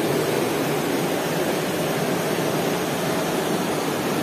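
Steady rushing of a river flowing over rocks, an even noise without breaks.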